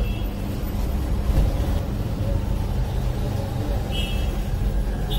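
Steady low rumble of passing street traffic with a constant hum, and two short high beeps about four and five seconds in.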